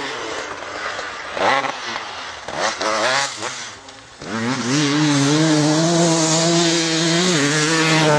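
Dirt bike engine revving. A few quick blips come in the first half, then it holds at high revs for about three seconds, dips briefly near the end and picks up again.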